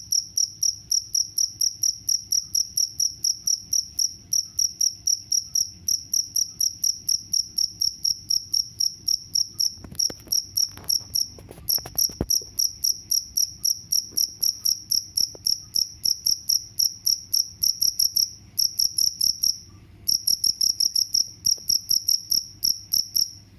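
Cricket chirping, a high, even chirp repeated about four times a second, with two brief pauses late on.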